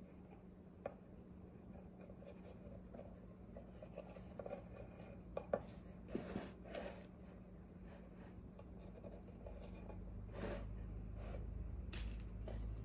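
Pencil drawing guide lines on a rough-carved wild cherry wood sculpture: faint, intermittent scratching strokes with a few light taps, over a steady low hum.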